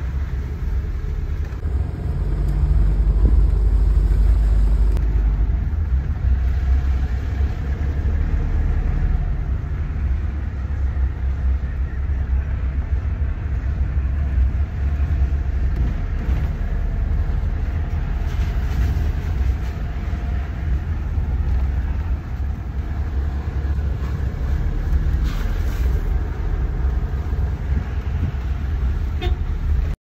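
Car driving, heard from inside the cabin with a window open: a steady low rumble of road and engine noise mixed with wind buffeting the phone's microphone, briefly louder a couple of seconds in.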